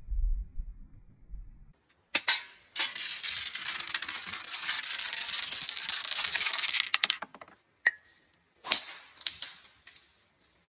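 A row of dominoes toppling one into the next along a railing: a dense run of rapid clicking lasting about four seconds, with a few separate sharp clicks and knocks before and after.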